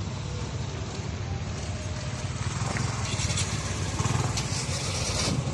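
A steady low engine drone with a noisy hiss over it.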